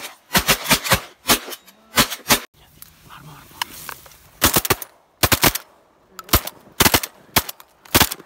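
Duck hunters' shotguns firing in rapid volleys, about fifteen sharp shots in quick clusters with short pauses between them.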